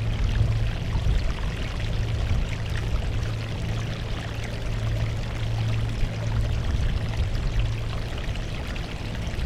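Seawater washing steadily against a rocky shore, a continuous even rush of water with no distinct breaks.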